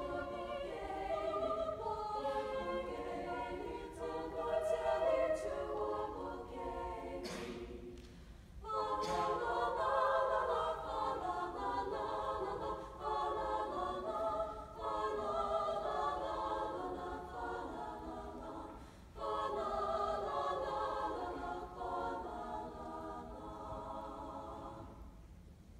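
Young women's madrigal choir singing unaccompanied in close harmony, in phrases with short breaks between them, the clearest about eight seconds in. The singing fades near the end.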